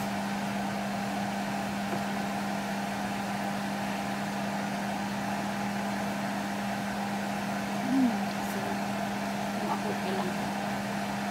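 A steady mechanical hum runs throughout while a pot of broth boils on the stove. A short murmur of a voice comes about eight seconds in.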